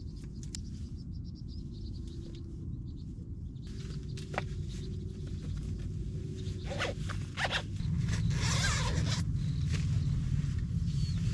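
A zipper being pulled, in a few short strokes and then one longer pull near the end.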